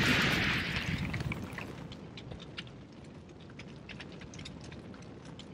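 Sound effect for a fiery logo reveal: the tail of a heavy impact fading away into a low rumble, with scattered ember-like crackles over it.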